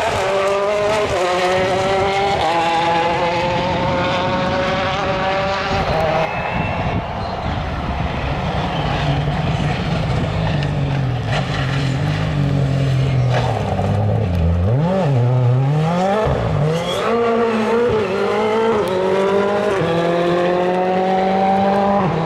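Rally cars at full throttle. An engine climbs through the gears in repeated rising runs, each cut short as it shifts up. About two-thirds of the way through, the pitch swings rapidly down and up in short stabs as a car brakes and changes down, and then it climbs through the gears again.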